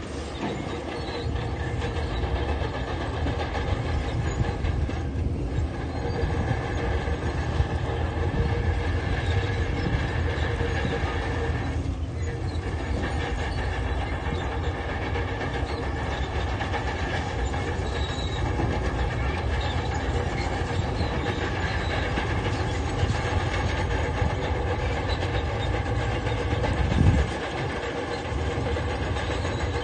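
Crawler bulldozer's diesel engine running steadily under load, with its steel tracks clanking, and a short louder burst near the end.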